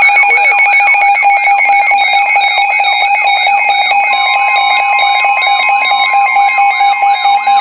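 Loud jumble of electronic alarm sounds layered together: a steady beeping tone, a fast rising-and-falling siren warble repeating about three times a second, and high beeps stepping up and down in pitch. A second steady alert tone joins about halfway through.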